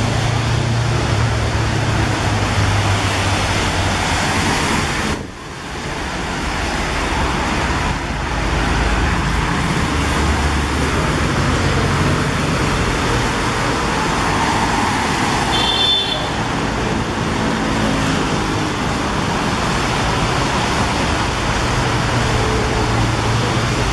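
Steady city road traffic: engines running and vehicles passing, with a short high beep about two-thirds of the way through.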